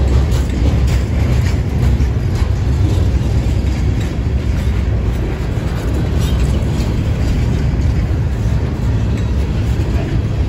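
Herzog ballast hopper cars of a freight train rolling slowly past at under 10 mph: a steady low rumble with a few faint sharp clicks from the wheels.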